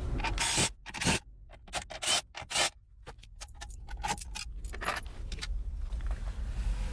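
Clinks, knocks and scrapes of hand tools and small metal parts being handled as a car's shifter assembly is taken apart, a quick run of sharp clicks in the first three seconds, then fainter scattered taps.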